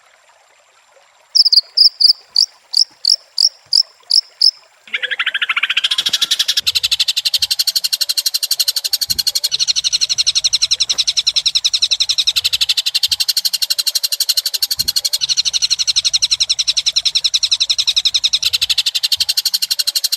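White-rumped shama song played as a lure: a run of about ten loud, sharp, high notes at roughly three a second, then a loud, very fast, unbroken high trill held steady.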